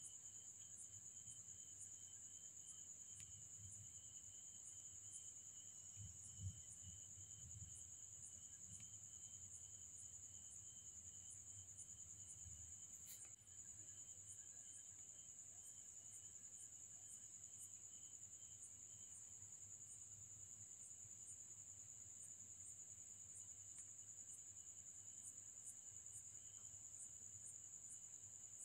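Faint, steady high-pitched insect trill, cricket-like, with short chirps repeating more than once a second. A soft low thump comes about six seconds in, and a faint click about thirteen seconds in.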